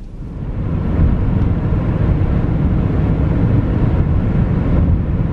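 Road and wind noise from a moving car, a steady low rumble that grows louder over the first second and then holds.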